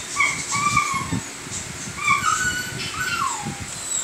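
A puppy whining: a string of short, high whimpers, the last one sliding down in pitch.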